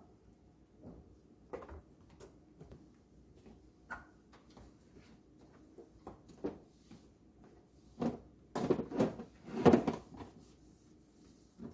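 Plastic food containers and a freezer drawer being handled: scattered light clacks and knocks, then a louder run of clattering and scraping about eight to ten seconds in.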